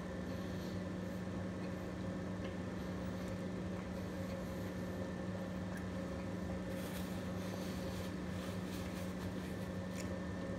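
Steady low electrical or mechanical room hum, with a few faint clicks of chewing and mouth noises about two thirds of the way through.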